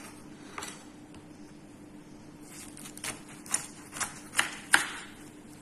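Kitchen knife knocking on a wooden cutting board in a quick, uneven series of about eight strikes in the second half, as bitter melon (ampalaya) is cut.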